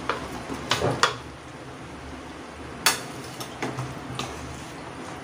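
Fried chicken pieces slid off a plate into a non-stick kadhai of masala gravy and stirred in with a spatula: a handful of clicks and knocks against the pan, the loudest about three seconds in, over a low steady sizzle.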